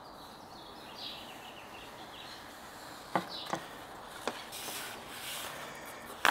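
Quiet handling of a peeled adhesive vinyl skin against a MacBook Pro's aluminium underside: a few light clicks and taps a little past the middle, a brief soft rustle, and a sharper tap at the very end.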